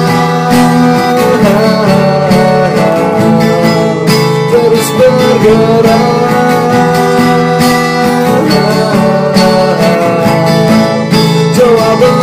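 Acoustic guitar with a capo, chords strummed steadily, with a higher melody line sliding between notes above the chords.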